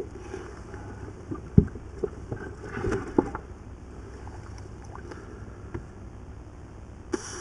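Knocks and thumps in an inflatable boat as a big caught fish is put down and stowed: one sharp, loud thump about one and a half seconds in, a cluster of knocks around three seconds, and a few light clicks, over a steady low rumble.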